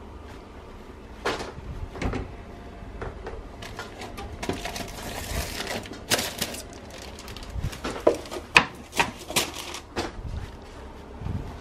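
An oven being opened and hot foil-covered baking trays handled with oven mitts: a string of sharp knocks, clinks and clatters. A short rustle comes about halfway through, and the loudest knocks fall a little after two-thirds of the way.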